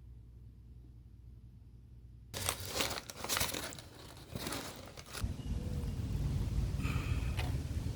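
Rustling, crinkling handling noise starting a couple of seconds in, followed by a steady low rumble from about five seconds in.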